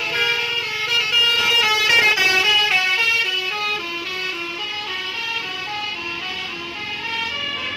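A bus's Basuri telolet horn, a multi-tone horn, playing a quick melody of stepped notes. It is louder for the first three seconds or so and a little quieter after.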